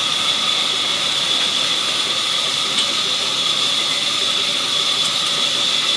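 Sawmill saw running steadily: a constant high-pitched whine over a hiss.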